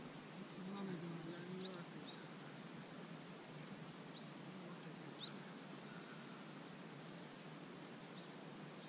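Faint outdoor ambience: a steady hiss with scattered short, high bird chirps, about half a dozen spread through it. A distant voice murmurs briefly about a second in.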